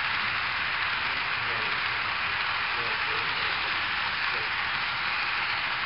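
HO scale model freight train of hopper cars rolling along the track, a steady even rushing noise with no clear clicks or changes. Faint voices are underneath.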